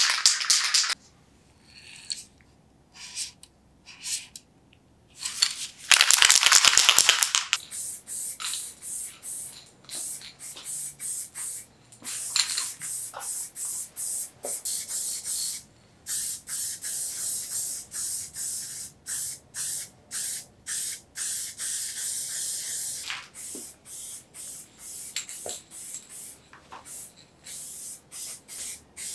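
Aerosol spray-paint can spraying in many short bursts of hiss, with two longer, louder sprays near the start.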